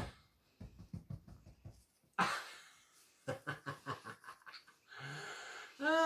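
A man panting and laughing breathlessly in short, uneven puffs, with a quick run of breathy laughs a little past the middle. He is winded from the exertion.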